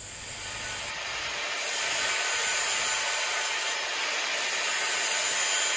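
Handheld angle grinder grinding down the blade of an outboard propeller as the prop is pressed against the spinning disc: a steady, high-pitched grinding hiss of disc on metal, building up over the first second and holding. The grinding is cutting down an oversized propeller, originally from a much bigger outboard, to fit a small motor.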